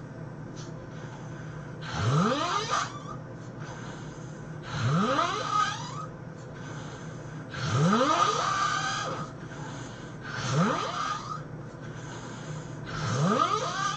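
A person snoring loudly: five heavy snores about three seconds apart, each rising in pitch as it goes.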